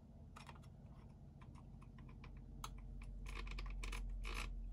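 Hex driver clicking and scraping against a small screw head on an RC buggy's steering as it is turned, in short irregular clicks: the driver is hard to seat squarely in the screw. A low steady hum grows louder in the second half.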